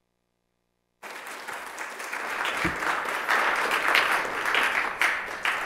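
Legislators applauding. The applause cuts in abruptly about a second in and builds.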